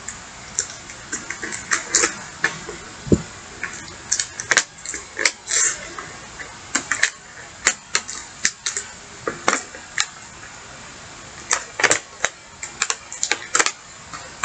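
Crinkling and crackling of a small clear plastic accessory bag being handled and pulled open: irregular sharp crackles coming in uneven clusters with short pauses, and one dull knock about three seconds in.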